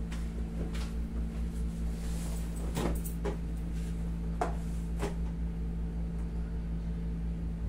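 A few brief soft knocks and creaks from a padded massage table and from handling as a patient's straight leg is raised and stretched. A steady low hum runs underneath.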